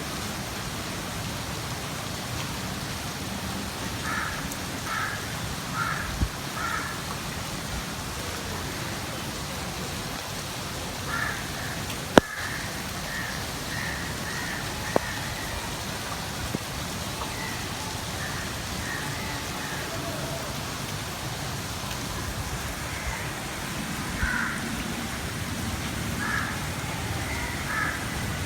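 Steady rain falling, with a bird calling over it in short repeated notes, in several bouts. Two sharp clicks stand out, about halfway through and a few seconds later.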